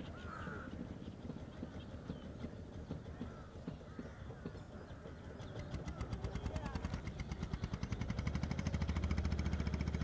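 Gulls in a flock giving harsh calls, with a small engine's rapid even puttering that builds through the second half, gets loudest near the end and cuts off abruptly.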